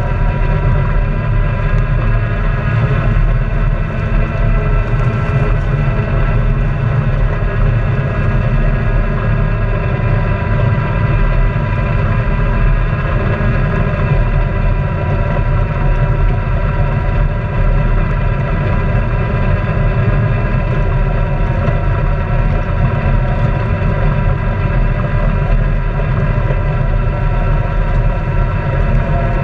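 Honda Pioneer 700-4 side-by-side's single-cylinder engine running at a steady speed under way, with a deep rumble underneath.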